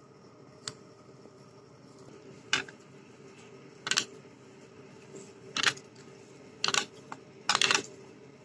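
Boiled potatoes being mashed and pressed by hand against a plastic plate: five short pressing, rubbing noises spaced about a second apart, with a sharp click a little under a second in.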